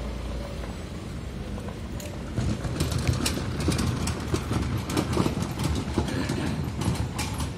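Small wheels of a hand-pushed cart trolley rattling and clattering over the pavement, a dense run of quick knocks starting about two seconds in. Before that there is a low steady hum.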